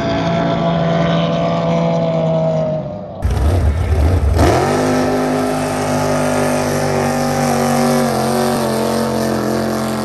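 Racing outboard engines of drag boats running flat out, a loud steady multi-tone whine. About three seconds in the sound changes abruptly to a burst of low rumble, the pitch dips and climbs back, then the engine note holds steady and fades slightly near the end.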